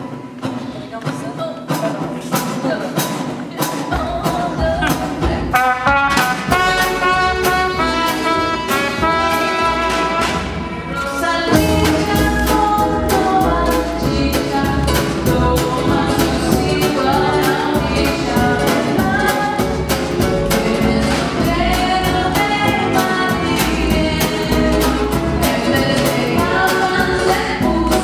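Live acoustic band music: acoustic guitar and upright double bass with percussion keeping a steady beat. The deep bass notes come in about four seconds in, and the band grows fuller around twelve seconds in.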